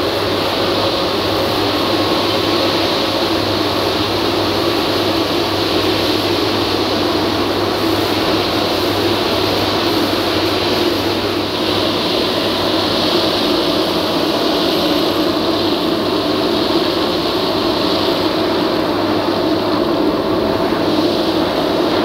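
Wieland FS-216 industrial wet-dry vacuum cleaner running steadily, its hose nozzle sucking metal chips and coolant off a machine tool's work area, with a constant low hum under the suction rush.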